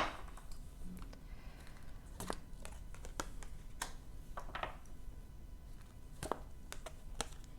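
Tarot cards being handled: scattered light clicks and short rustles, with a sharper click at the start.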